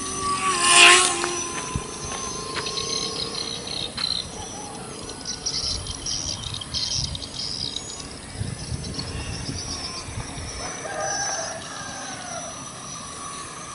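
Birds chirping and a rooster crowing, with a loud burst about a second in and a run of high chirps around the middle.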